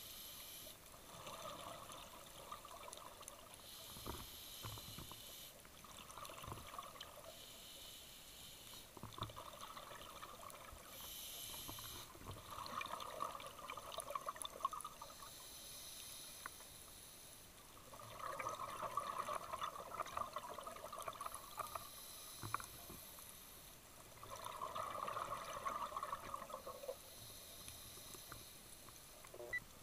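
Scuba regulator breathing heard underwater: a short hiss on each inhale, then a longer burst of exhaust bubbles on each exhale, repeating in a slow cycle about every five seconds.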